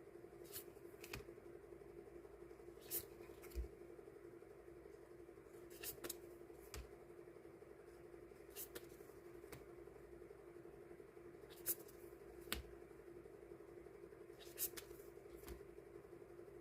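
Scattered soft clicks and taps, a dozen or so at irregular spacing, from hands handling die-cut stickers and their packaging on a desk, over a steady faint hum.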